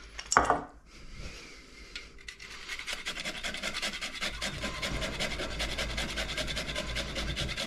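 Whole nutmeg being grated on a long rasp grater, with quick, even scraping strokes starting about two seconds in. There is a short knock near the start.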